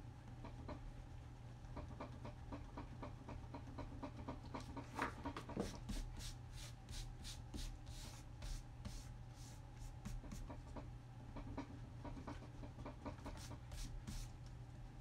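Pencil strokes scratching on drawing paper, in quick runs of short strokes that are busiest in the middle and again near the end.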